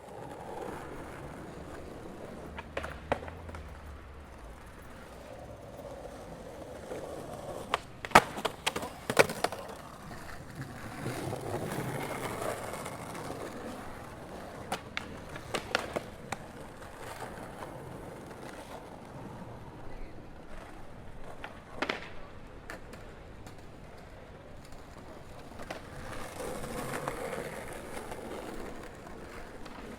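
Outdoor city ambience: a steady background hum with scattered sharp clicks and knocks, the loudest cluster about eight to nine seconds in.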